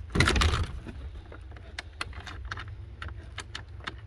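A padlock and steel hasp on a wooden shed door clicking and rattling as a hand works the lock to open it. There is a brief louder noise just after the start and a steady low rumble underneath.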